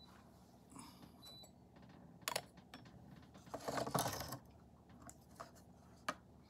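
Light clinks and knocks of small teaware being handled: a sharp knock a little after two seconds in, a longer clatter of about a second around four seconds, and a click near the end.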